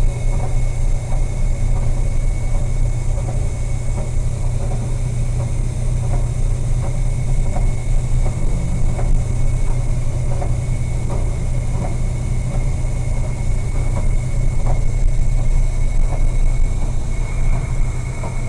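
Steady low engine drone with faint, irregular light knocks.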